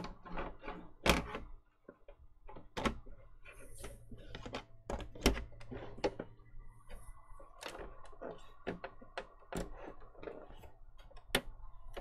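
Irregular clicks and knocks of a PlayStation 4 Pro's plastic top cover being handled and pressed down onto the console, the sharpest knocks about a second in, about five seconds in and near the end.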